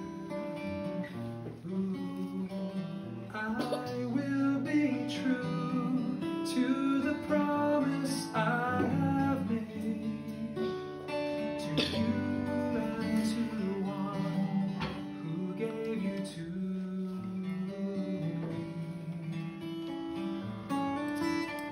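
A man singing a slow ballad while strumming an acoustic guitar.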